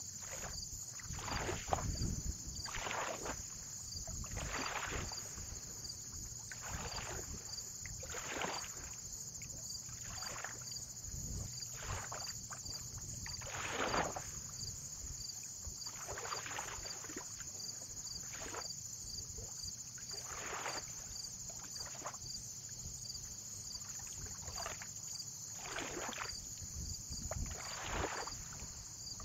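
Small waves lapping at the water's edge: a soft splash every one to two seconds, over a steady high-pitched insect-like drone.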